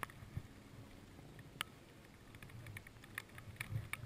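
Scattered light clicks and taps with soft low thuds of footsteps, from someone walking in kit through wet scrub.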